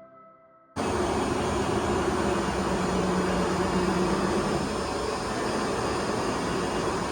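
Pinacho Taurus 260 CNC lathe running: a steady mechanical whir and hum, with a few held tones, that cuts in abruptly about a second in.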